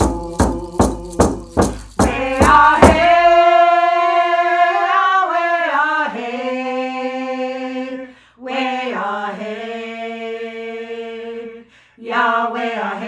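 Voices singing a traditional Maliseet song in unison over a steady percussion beat of about three strokes a second. The beat stops about three seconds in and the singing carries on unaccompanied in long held notes, pausing briefly twice.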